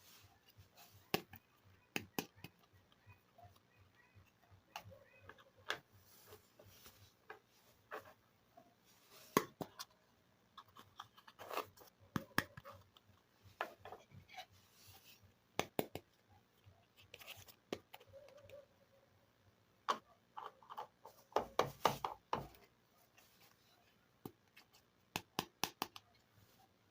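Small plastic toy kitchen pieces being handled: scattered sharp clicks and taps, with a quick run of clicks about three quarters of the way through.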